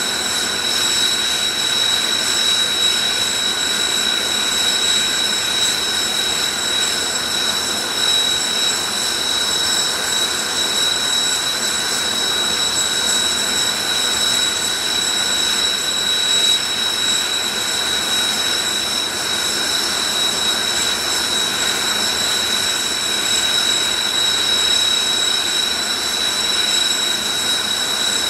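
Jet engines of Blue Impulse Kawasaki T-4 aircraft running with a steady high-pitched turbine whine that does not change in pitch or level.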